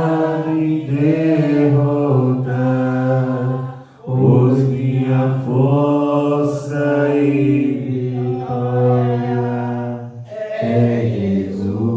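Voices singing a slow Portuguese worship song in long, held notes, with short breaks about four seconds in and again after ten seconds.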